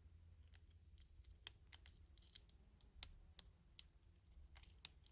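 Faint, irregular small clicks of a half-diamond lock pick working the pins inside a key-in-knob lock cylinder, with a steady low hum underneath.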